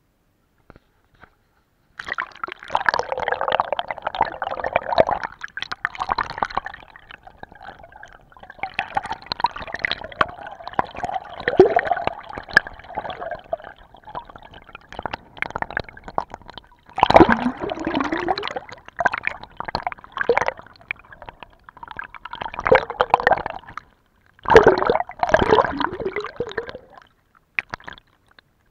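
Water gurgling and rushing against a submerged camera, in irregular bursts of a few seconds with short quieter pauses between them.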